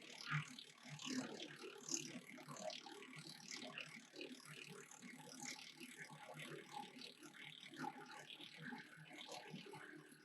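PTO-driven 6-inch wood chipper chewing branches fed into it: a rapid, irregular crackle and clatter of wood being chipped.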